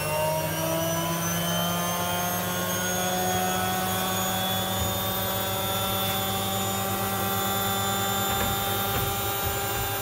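Hoover Ecologic 1300 front-loading washing machine on a high-speed spin: the motor's whine, several tones at once, finishes rising in the first second and then holds steady at top speed.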